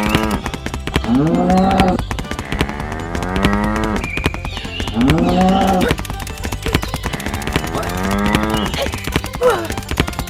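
Cattle mooing: a long call repeated about every two seconds, over a steady patter of clicks.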